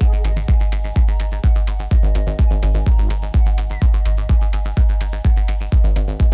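Electronic dance music with a steady four-on-the-floor kick drum, about two beats a second, with hi-hats and held synth chords.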